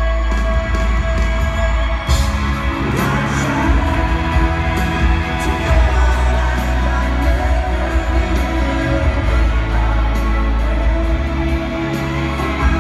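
Live amplified pop music with a singer, heard from the crowd at an arena concert, with strong bass throughout.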